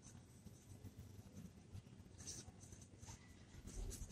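Faint scratching of a Jinhao pen writing on paper, a few soft strokes about two seconds in and again near the end, over near-silent room tone.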